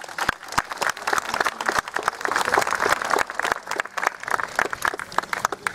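Crowd applauding: many people clapping at once in a dense, steady patter.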